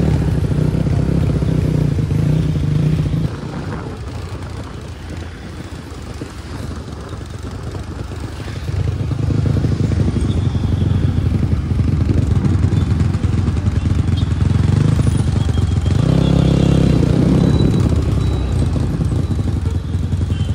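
Dirt bike engine running under the rider, heard from the saddle in traffic. About three seconds in it drops quieter for several seconds, then picks up again, with a louder surge a few seconds before the end.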